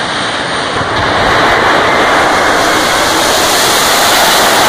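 Jet dragster turbine engines running, heard from the grandstands as a loud, steady rushing noise that gets louder about a second in.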